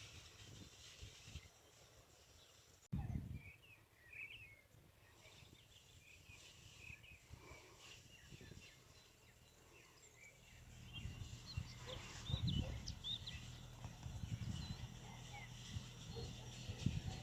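Small birds chirping in short, scattered high calls, more of them in the second half. From about ten seconds in, an uneven low rumble runs beneath them.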